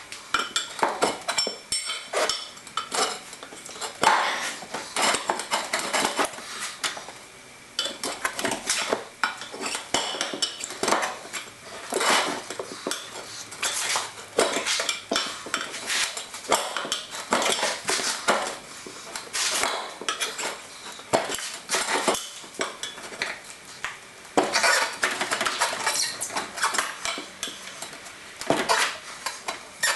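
Metal hand tools and steel parts clinking and clattering irregularly, with many sharp metallic knocks.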